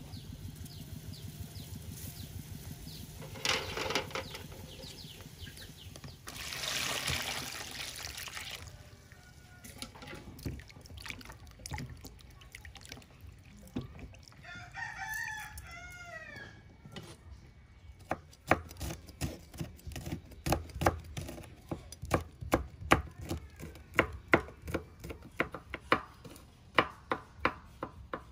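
Water splashing as hands wash something in a bowl. Partway through, a rooster crows once. In the last third, a knife chops steadily on a wooden cutting board, the loudest sound, at about two strokes a second.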